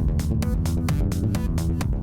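Music with a steady fast beat, about four to five percussive hits a second, over sustained bass and synth notes.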